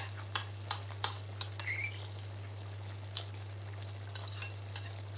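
Metal spoon clinking and scraping against a china bowl while eating: a quick run of clicks in the first second and a half, then a few scattered taps, over a steady low hum.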